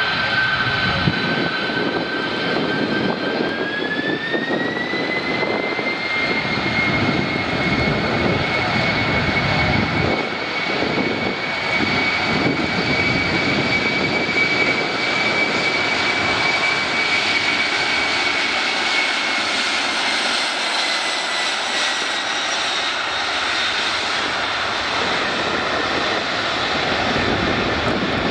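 Boeing 747-400's four turbofan engines spooling up to take-off thrust. A whine rises in pitch about four seconds in, then holds over a steady jet roar as the jumbo accelerates down the runway. Near the end the whine sinks a little as the aircraft moves away.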